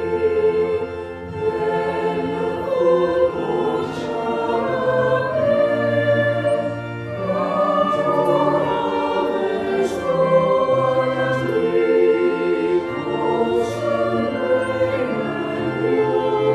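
Choir singing in long held notes, with steady low accompanying notes beneath.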